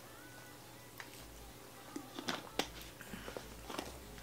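Clear plastic water bottle being drunk from and lowered: a few faint crackles and soft clicks of the thin plastic, the sharpest about two and a half seconds in and several small ones near the end.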